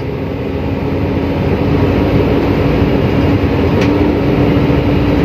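Inside a truck's cab while driving: a steady engine drone and road rumble with a low, even hum, growing slightly louder over the first couple of seconds. A faint click is heard about four seconds in.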